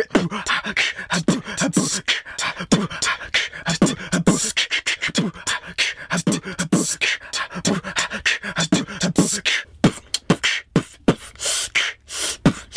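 Beatboxed hip-hop beat with no rapping over it: a fast, steady run of vocal percussion hits mixed with short low pitched notes.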